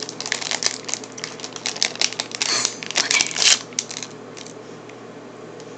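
Plastic M&M's candy bag crinkling and crackling as it is handled and torn open, in a dense run of crackles that is loudest about three seconds in and stops after about four seconds.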